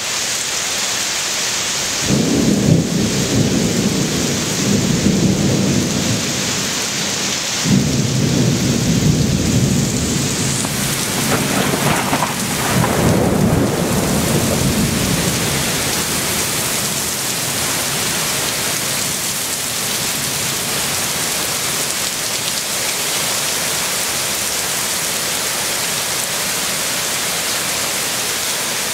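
Heavy rain falling steadily with two rolls of thunder: the first starts about two seconds in, the second starts sharply about eight seconds in, and the rumbling dies away by about fifteen seconds in.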